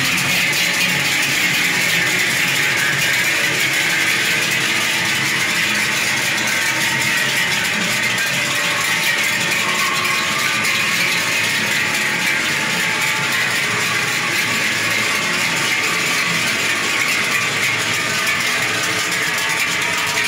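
Many large cowbells clanging together continuously as a herd of cows, each with a bell at its neck, walks past close by.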